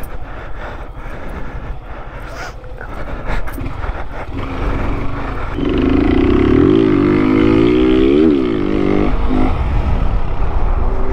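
Honda CG 160 single-cylinder motorcycle engine with an aftermarket exhaust, heard while riding. About five seconds in it gets louder as the throttle opens, and the revs climb and fall a few times as the bike accelerates.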